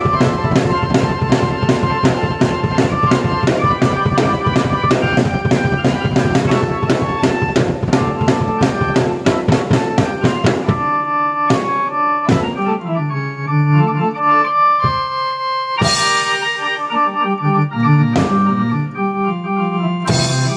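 Drum kit and keyboard played together by one player. For about the first ten seconds a fast, dense drum beat runs under held keyboard chords; after that come sparser drum hits under a moving keyboard melody and bass line.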